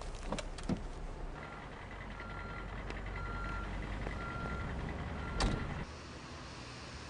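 Low vehicle hum with an electronic beep repeating about once a second, four times, over a faint steady tone. A sharp knock comes near the end, and the hum drops away just after it.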